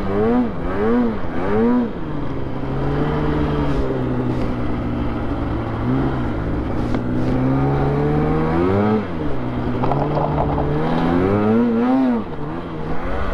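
Polaris SKS 146 snowmobile's two-stroke engine, heard from the rider's seat while riding. It revs up and down in quick throttle blips, about two a second, for the first couple of seconds, then holds a steadier pitch, with another quick rise and fall about nine seconds in and more revving near the end.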